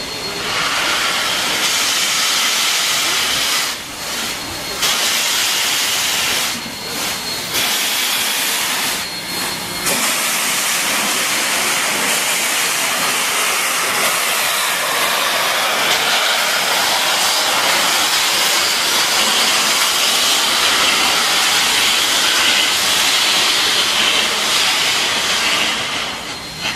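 Baldwin-built NSW 59 class 2-8-2 steam locomotive 5917 blowing steam from its open cylinder drain cocks: a loud, steady hiss, broken by a few brief dips in the first ten seconds.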